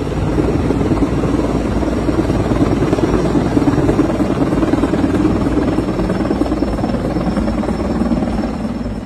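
Erickson S-64 Air-Crane heavy-lift helicopter hovering low overhead with a slung load, its rotor beating fast and steady, with a thin high turbine whine above it.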